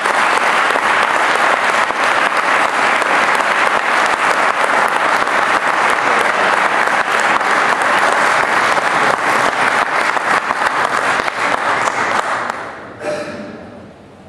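Audience applauding: a dense, steady run of clapping that dies away about twelve seconds in, leaving faint voices near the end.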